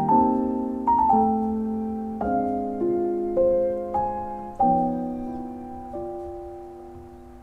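Background music: slow, gentle solo piano, with chords and single notes struck and left to ring out. It grows quieter toward the end.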